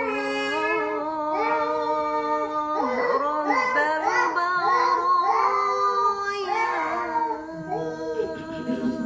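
A child's high voice singing a melody in long held notes, with music underneath.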